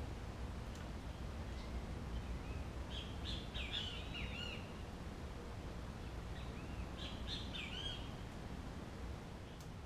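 Birds calling in the mangrove: two short runs of quick chirping notes, about three seconds in and again about seven seconds in, over a steady low rumble.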